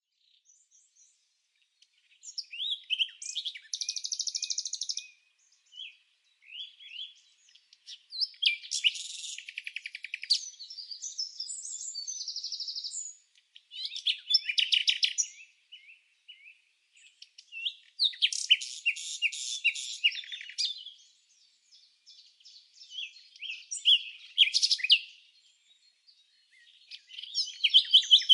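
Songbird song: phrases of fast, high-pitched trills and chirps a few seconds long, each followed by a short pause, over an otherwise clean, quiet background.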